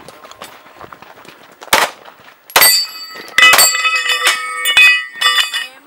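A string of handgun shots fired in quick succession at steel targets, the hits making the steel ring with clear, lingering metallic tones. The first shot comes nearly two seconds in; the fastest run of shots and rings is in the second half.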